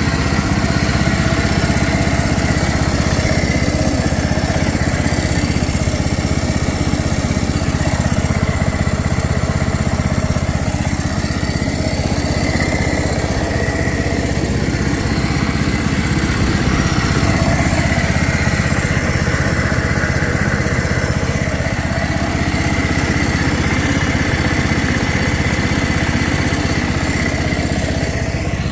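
Briggs & Stratton engine of a John Deere Z225 zero-turn mower running steadily at an even speed, freshly rebuilt with a new head gasket and carburetor. It is burning off oil residue left in the muffler.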